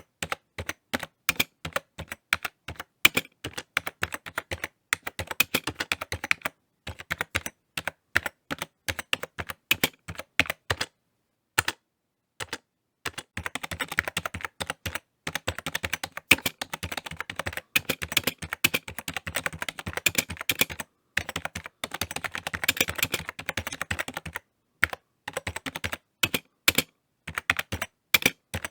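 Typing on a computer keyboard: runs of quick key clicks, with short pauses between runs and one pause of about a second near the middle.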